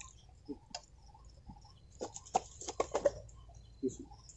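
Small clicks and taps of hands packing pieces of marinated chicken into a green bamboo tube, with a quick run of sharp taps about two to three seconds in.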